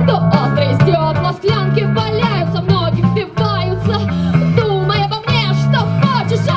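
Live rock band playing: a woman singing the lead over electric guitars and a drum kit, with a steady bass line and regular drum hits.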